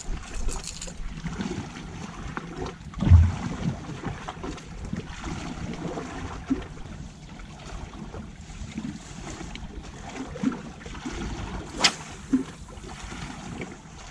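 Scattered knocks and rustles from handling the camera, the loudest a heavy thump about three seconds in and a sharp click near the end, over a steady bed of wind and sea noise.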